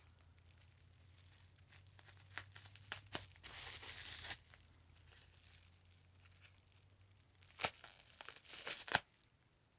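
Packing tape being slit and torn off a package, with crinkling of the wrapping: scattered clicks, a short tearing stretch about three and a half seconds in, and a few sharp snaps near the end, all faint.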